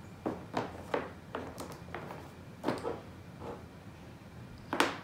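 Plastic Ben 10 action figures being moved and set down on a small table: a string of about nine irregular clacks and knocks, the loudest near the end.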